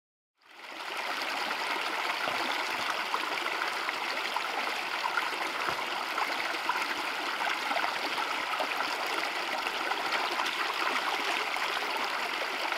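Shallow creek water running over smooth rock slabs, a steady rushing trickle that starts about half a second in.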